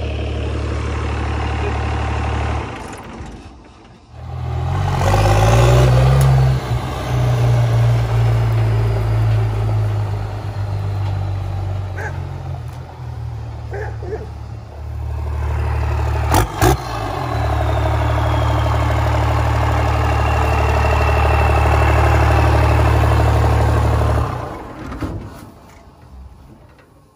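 12-valve Cummins diesel running through a hood stack, revving as the truck pulls away: the engine note dips about three seconds in, then rises sharply and holds loud, with two sharp knocks about halfway through, and fades away near the end.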